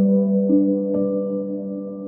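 Instrumental background music: a held chord, with one new note struck about half a second in and another about a second in, each ringing on.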